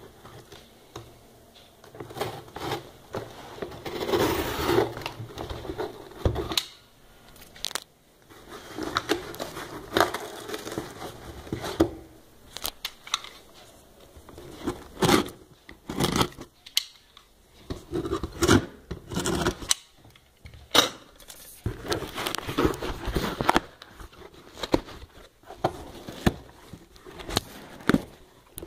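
Cardboard shipping box being cut and torn open with a box cutter: irregular scraping, tearing and crackling of cardboard and packing tape, with sharp knocks as the box is handled.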